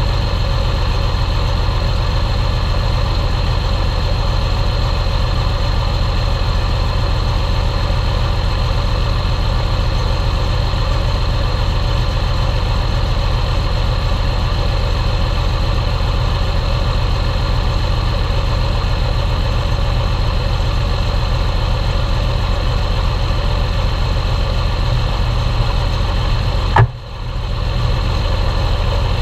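Belarus 1221.3 tractor's diesel engine running steadily. Near the end a single sharp click, with a brief drop in the sound.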